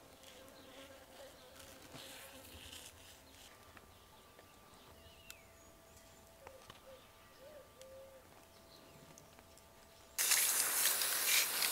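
Faint buzzing of a flying insect, its pitch wavering, over near silence. About ten seconds in, a loud rushing hiss starts suddenly.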